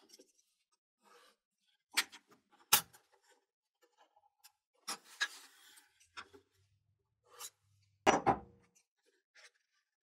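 Handling sounds of a folding metal marking multi-tool on a wooden board: scattered sharp clicks and knocks as its arms are swung and set down, a short scrape about five seconds in, and the loudest knock about eight seconds in.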